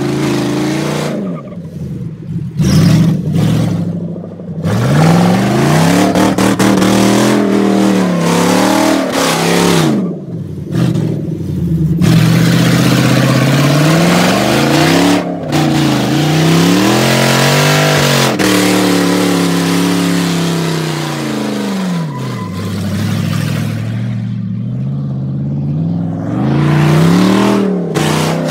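Lexus 1UZ-FE 4.0-litre V8 in a rear-wheel-drive Mitsubishi Pajero, revved up and eased off again and again while spinning doughnuts, so its pitch rises and falls in repeated sweeps. Under it runs the rushing noise of the rear wheels spinning in loose dirt.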